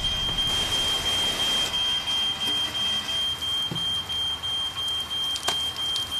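A fire alarm sounding one steady high-pitched tone over the hiss of fire sprinklers spraying water, with a single knock near the end.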